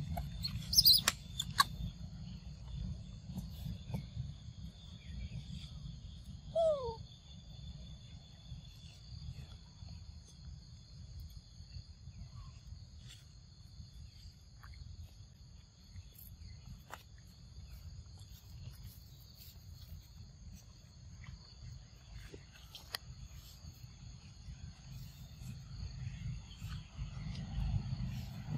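Forest ambience: a steady high insect drone over a low rumble, with a few sharp clicks in the first two seconds. About six and a half seconds in, a young macaque gives one short falling squeak.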